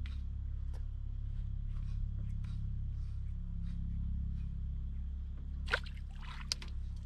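Fishing boat on the water: a steady low hum with faint scattered ticks of rods and reels being worked. About six seconds in there is a sharper click with a brief rustle, then a second click.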